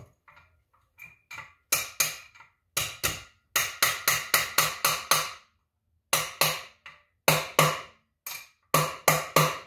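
A metal hand tool used as a hammer, knocking on the cast aluminium clutch cover of a Honda 300EX engine to free it from the case. Sharp, ringing knocks come in quick groups of two to seven, about three a second, with short pauses between groups.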